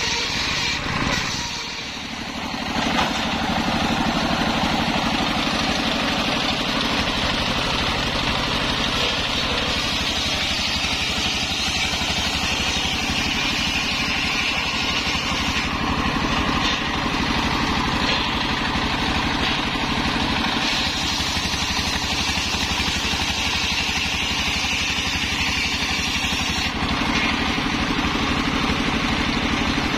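Small mobile sawmill's stationary diesel engine running steadily, belt-driving a large circular saw blade. A cut through a waru plank ends with a brief dip about two seconds in, and the engine and spinning blade then run on unloaded.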